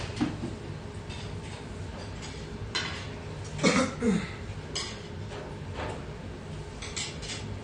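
Scattered clinks and knocks of dishes and cutlery, loudest in a short cluster just under halfway through that slides down in pitch, over a steady low hum.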